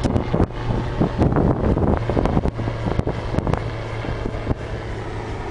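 Wind rumbling on the microphone, with a few sharp knocks.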